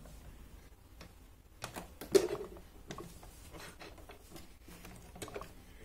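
A few scattered light clicks and knocks of fabric and parts being handled at a domestic sewing machine, with one louder knock about two seconds in; the machine is not running.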